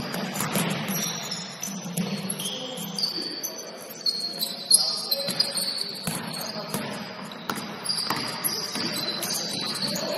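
Basketball game play: the ball bouncing on a hard court in irregular knocks, the sharpest about halfway through, with short high-pitched sneaker squeaks throughout.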